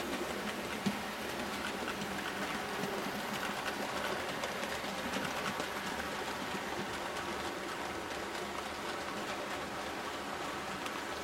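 00 gauge model trains running through a station and passing each other: a steady rolling rush of wheels on the track with faint scattered clicks.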